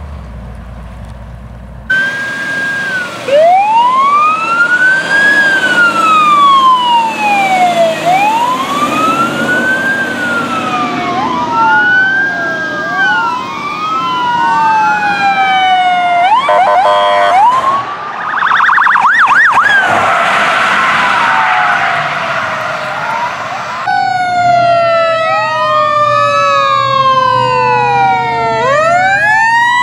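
Emergency vehicle sirens wailing, rising and falling every few seconds, with several sirens overlapping. Partway through they switch to a fast yelp and a rapid warble, and near the end a fresh set of wailing sirens starts abruptly. A low rumble precedes the sirens in the first two seconds.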